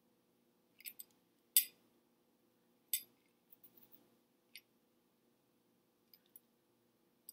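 Quiet room with a faint steady low hum, broken by a handful of short, sharp clicks and taps; the loudest come about a second and a half in and again at three seconds, with a smaller one near five seconds.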